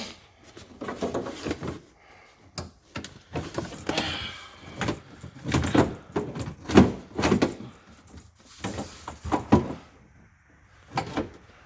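Irregular knocks, clicks and rattles of metal and plastic parts being handled and fitted inside a car door, with a brief scrape about four seconds in.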